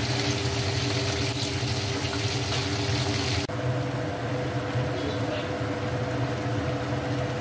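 Chicken wings deep-frying in oil in a wok on their second fry for crispness: a steady crackling sizzle. About three and a half seconds in it cuts abruptly to a wok of pork and bamboo shoots simmering, softer and duller, over a steady low hum.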